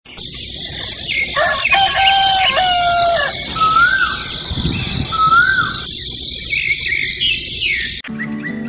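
A rooster crowing: one long call lasting about two seconds, followed by two short rising bird calls, over a steady high hiss. Music cuts in near the end.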